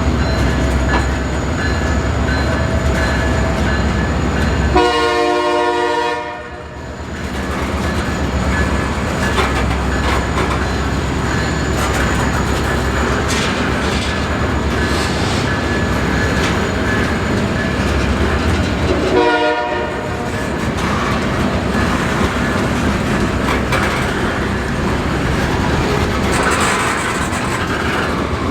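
A freight train led by EMD diesel-electric locomotives is passing, with a steady low engine rumble and wheels clattering over the rails. The horn sounds twice: a blast of about two seconds about five seconds in, and a short one later on.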